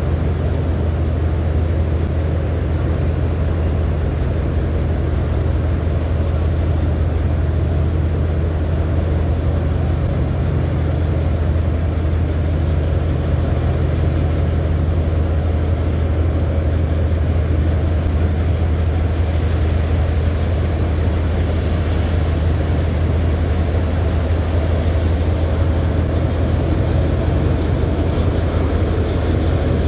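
A Japan Coast Guard patrol vessel's engine machinery running: a steady low drone that holds even throughout.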